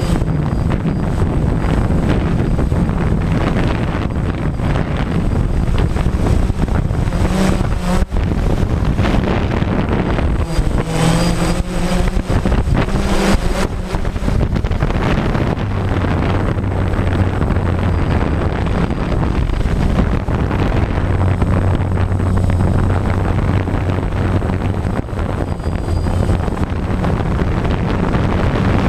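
DJI Phantom quadcopter's motors and propellers running, picked up by the GoPro riding on it, with wind and prop wash buffeting the microphone. The motor pitch shifts and wavers about a third of the way in as the drone comes down.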